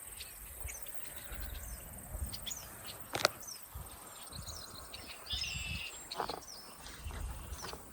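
Insects trilling in a steady high continuous tone, with scattered bird chirps and a short patterned bird call a little past five seconds in. A single sharp click sounds about three seconds in.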